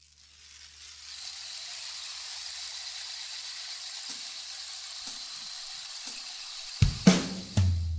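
Steady hiss that fades in over the first second and holds. Music comes in near the end with deep bass notes and a few sharp strikes.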